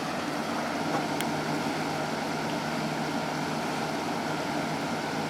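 Air conditioner running, its fan blowing a steady whoosh over a low, even hum.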